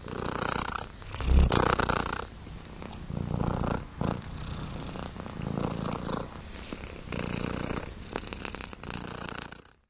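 A cat purring in repeated swells about a second long, one per breath, stopping abruptly near the end.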